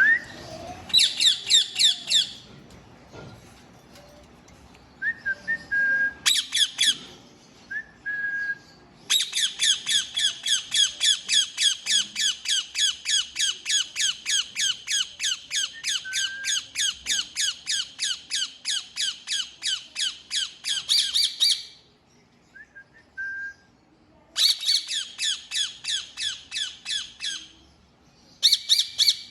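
Indian ringneck parakeet screeching in rapid series of harsh calls, about four a second, in several bouts, the longest lasting about twelve seconds. A few short whistled notes come between the bouts.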